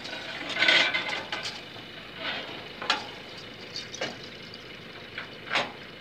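Irregular knocks, clatter and scraping against a pickup truck's wooden cargo bed as a cow is pushed up into it, the loudest a rough clattering burst about a second in, then scattered sharp knocks.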